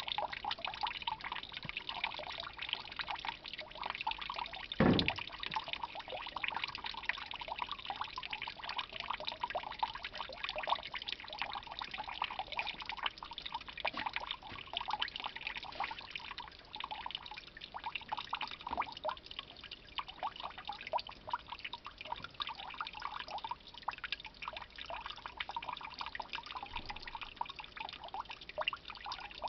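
White grape juice trickling in a thin stream from a basket wine press's spout into a plastic tub, a steady dribbling splash as the resting grapes drain. A single sharp knock sounds about five seconds in.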